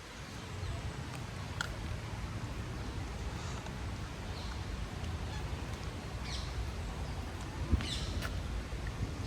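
Birds in a city park calling briefly about five times, over a steady low rumble of city background.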